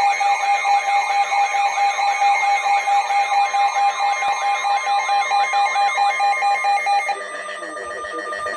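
Electronic emergency alert tones: a warbling tone rising and falling about twice a second, layered over steady beeping tones. About seven seconds in, it changes to a steady held tone.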